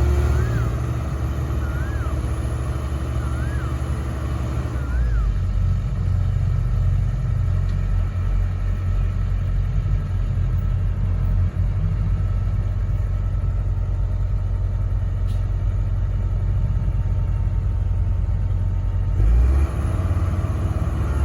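Diesel engine of a Komatsu PC130 hydraulic excavator running steadily under load while it digs and loads soil, with its tone shifting about five seconds in and again near the end. A short high chirp repeats about every second and a half during the first few seconds.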